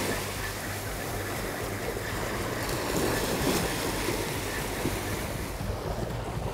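Small surf waves washing up and draining back on a sandy beach, with wind buffeting the microphone; the wash swells a little about halfway through.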